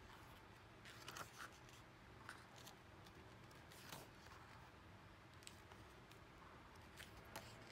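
Faint, brief rustles and soft taps of photobook pages being turned and handled by hand, a few at a time, over near-silent room tone.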